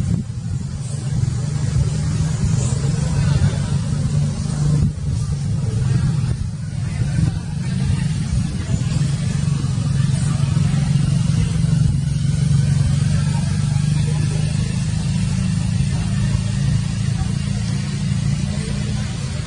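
A steady low motor hum with a hiss over it.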